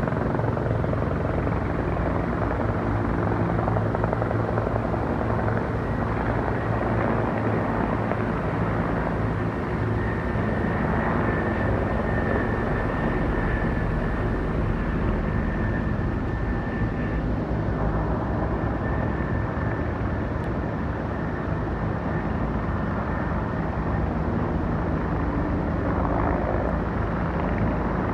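Helicopter rotor beating steadily, with a faint high steady whine for several seconds in the middle.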